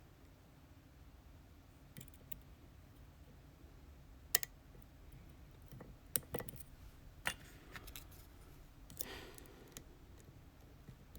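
Irregular small metallic clicks and taps from hand work on an ASSA Twin Exclusive lock cylinder, the loudest about four seconds in. There is a brief scraping rattle about nine seconds in.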